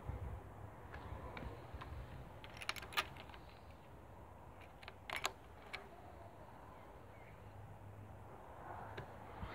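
Quiet handling noises around a motorcycle whose engine is not running, with a few sharp clicks, two about three seconds in and two more about five seconds in.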